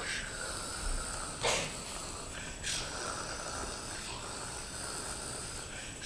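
A man's wordless vocal noises: two short, sharp, noisy breaths about a second apart, over a faint steady high tone.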